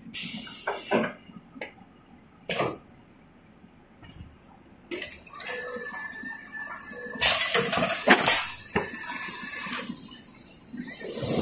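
Scattered knocks and clicks around a toilet-tissue rewinding machine, with no steady running noise for most of the stretch. Near the end the rewinder's steady running noise rises in.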